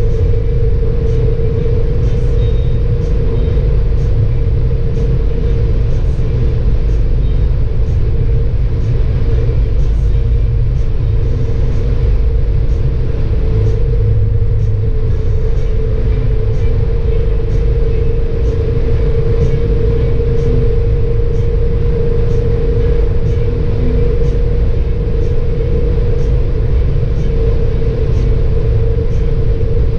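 Cabin noise inside a Citroën C6 2.7 V6 HDi diesel cruising at autobahn speed: a steady, heavy low rumble of road, tyre and wind noise, with a constant mid-pitched hum running through it.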